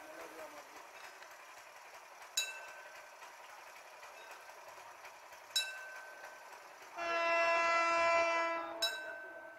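Diesel locomotive's horn (EMD GT18LA-2) sounding one long blast of about two seconds near the end. Before it, a short, sharp ringing ping repeats about every three seconds.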